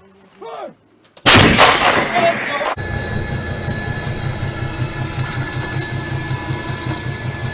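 An artillery piece fires once, a sudden loud blast about a second in that rumbles for a second and a half. It then cuts to a steady mechanical running sound, a rapid low throb of about six pulses a second under a steady whine.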